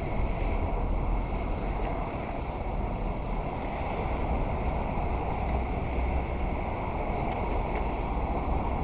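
Wind buffeting the microphone: a steady low rumble with a hiss above it and no distinct events.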